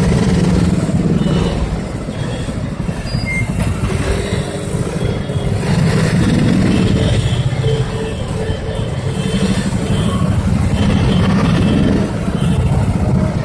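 Motorcycle engines idling in a dense pack of stopped traffic: a steady low rumble that swells and eases a little.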